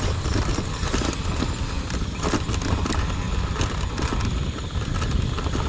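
Bicycle riding over a bumpy dirt road: irregular rattling and knocking from the bike and its load, over a steady low wind rumble on the microphone.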